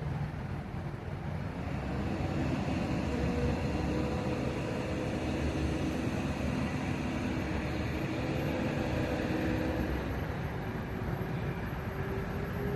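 Heavy engine running steadily with a low rumble, its pitch drifting slightly up and down and growing a little louder about two seconds in.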